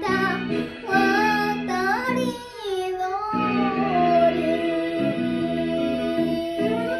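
A young girl singing a Japanese song over a karaoke backing track, holding one long note through the second half.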